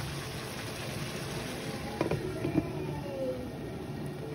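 Glass lid set down on a metal frying pan about two seconds in: two clinks with a short ringing after them. Under it runs a steady hiss from the stove and the simmering pan.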